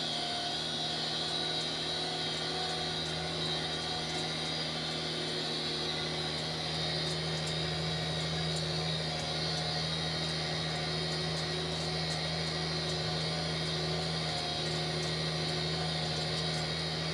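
Tractor engine running steadily under load while driving a Claas grass tedder, a constant drone with a steady high whine above it.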